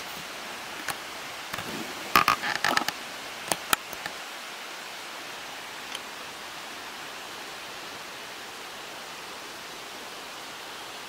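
Steady even hiss of outdoor background noise, broken by a short cluster of sharp clicks and knocks about two to four seconds in.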